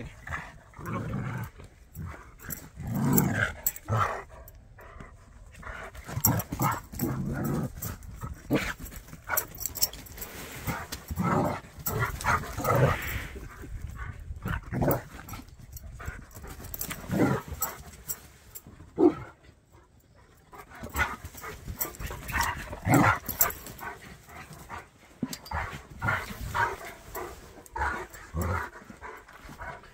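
A Jack Russell puppy and a Bernese mountain dog playing together, with short, irregular dog vocalisations coming on and off, with brief pauses.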